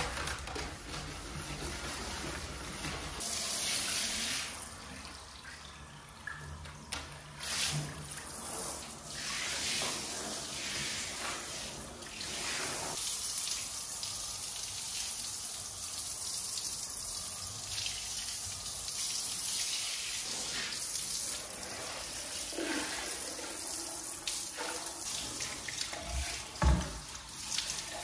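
Handheld shower head spraying water onto a tiled bathroom floor and fixtures, rinsing them down. A sharp knock about a second before the end.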